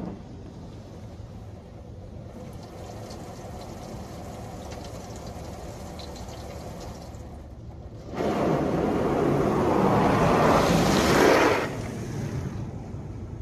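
Touchless automatic car wash spraying water over the car, heard from inside the cabin: a steady hiss of water on the body and glass, then the high-pressure spray sweeping across much louder for about three and a half seconds past the middle before easing off.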